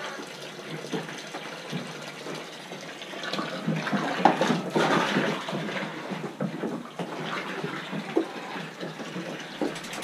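Water running and splashing into a container as it fills, growing louder and busier about four seconds in.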